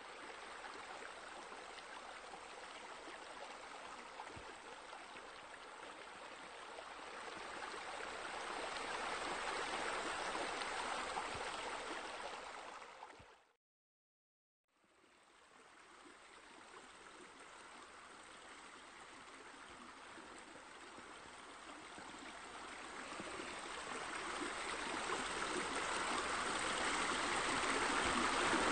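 Steady splashing of water from pool water features, fountain bowls and a rain curtain spilling into the pool. It cuts out for about a second midway, then comes back and grows louder toward the end.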